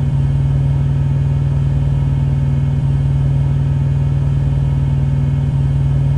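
A steady low hum, loud and unchanging, with no other events.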